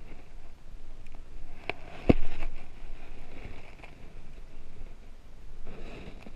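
Wind rumbling on the camera microphone, with a sharp handling knock about two seconds in and a weaker click just before it.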